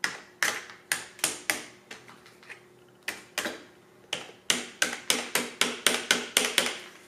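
Sharp clicking taps as a screwdriver works a caster housing cap back into place. The taps come unevenly at first, then settle into a steady run of about four a second in the second half.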